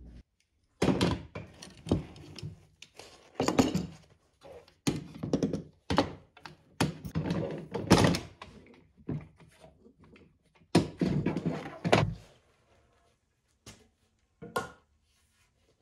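An irregular series of sharp knocks and clattering thunks as quick-release bar clamps are handled and tightened against a padauk wood glue-up on a workbench. The knocks come in quick clusters, and thin to a few light clicks near the end.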